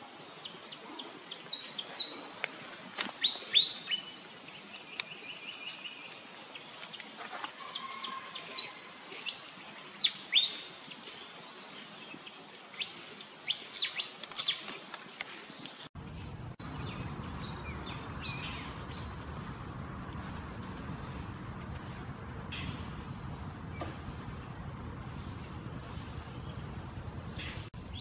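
Small birds calling in short, sharp chirps and trills, busy and loud for the first half. About halfway through, the background switches abruptly to a steady low rumbling noise, with fewer and fainter bird calls over it.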